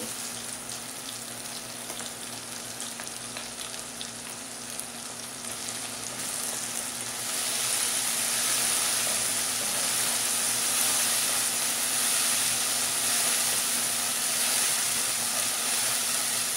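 Onions and tomatoes sizzling in hot oil in a non-stick kadhai while being stirred with a wooden spatula. The sizzle grows louder about seven seconds in, once ginger-garlic and green chilli paste is in the pan.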